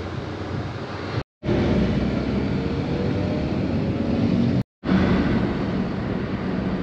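Road and engine noise of a moving car heard from inside the cabin: a steady rumble and hiss, broken twice by short moments of silence.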